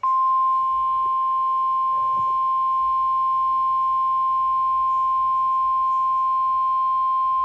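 NOAA Weather Radio warning alarm tone, a single steady 1050 Hz tone, sounding from the small speaker of a Midland handheld weather radio. It comes on suddenly and holds at an even pitch and level. It is the alert that a National Weather Service warning is about to be read, here a severe thunderstorm warning.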